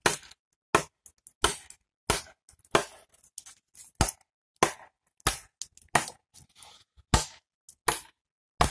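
Knife blade chopping into a dry maple branch: a dozen or so sharp strikes, about one every half to two-thirds of a second, each with a short woody crack.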